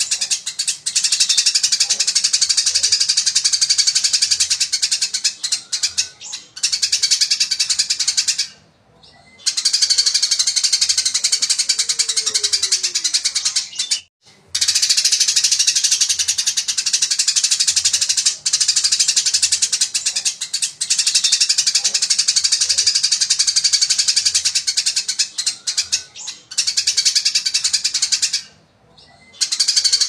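Eurasian tree sparrow chattering in a fast, dense run of high chirps, pausing briefly three times.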